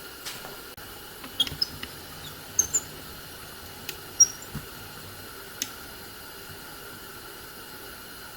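Wooden winding sticks being set down and handled on a planed board: a scatter of light clicks and taps with a few short high squeaks, settling after about five seconds into a steady faint background hiss.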